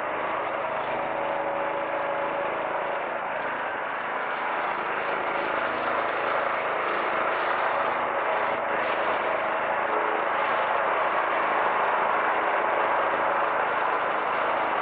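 The four Pratt & Whitney F117 turbofan engines of a Boeing C-17 Globemaster III running at taxi power: a steady jet rush with a steady whine through it. It grows a little louder about halfway through as the aircraft turns to face the microphone.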